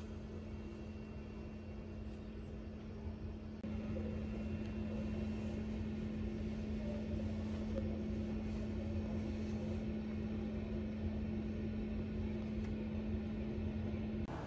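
Steady low mechanical hum with one fixed tone over a low rumble: the room tone of an airport terminal's air-handling machinery. It steps up a little in level about four seconds in.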